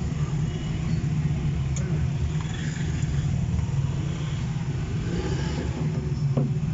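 Steady low motor hum, with a few faint small clicks as the screws of a steering-wheel quick release are tightened onto its hub adapter.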